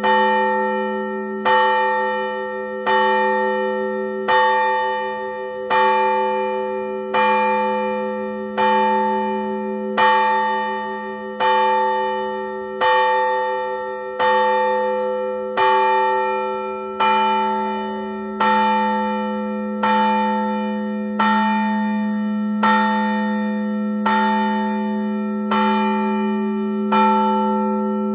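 A single large Orthodox church bell struck in slow, even strokes, about one every second and a half. It gives the same note each time, and its low hum carries on between the strokes. This is the measured ringing of one bell that calls the faithful to the service.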